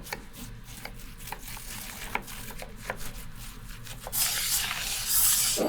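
A knife cutting cabbage into small cubes on a cutting board, with scattered sharp knocks. About four seconds in comes a scraping, rustling rush of about a second and a half as the cut cabbage is swept into a bowl.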